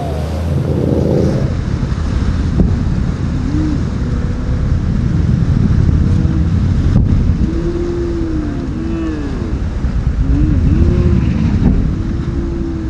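Cigarette speedboat's engines running hard through rough inlet waves, their pitch swooping up and down again and again as the hull rides and jumps over the swells.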